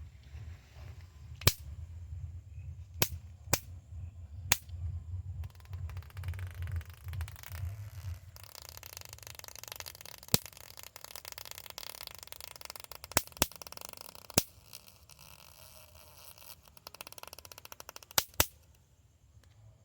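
Electric mosquito zapper snapping as it kills mosquitoes: about ten sharp pops at irregular intervals, some in quick pairs. A low hum runs under the first half, and a faint crackling hiss fills the second half.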